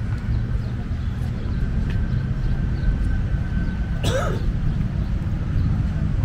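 Outdoor city ambience: a steady low rumble, with a short sharp call that bends quickly in pitch about four seconds in.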